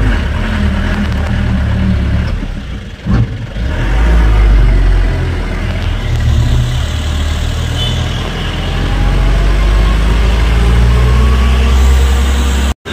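Car engine and road noise heard from inside the cabin while driving, a steady low rumble. It dips with a short thud about three seconds in and cuts out for a moment near the end.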